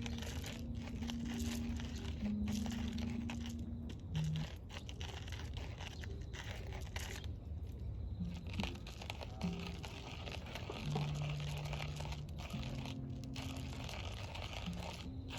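Wood fire crackling and popping, with a few sparse, held low guitar notes over it.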